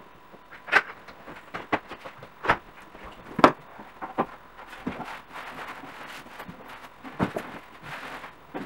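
A long cardboard box and a wooden shelf board being handled on a stone countertop: irregular knocks, taps and scrapes, with the loudest thump about three and a half seconds in.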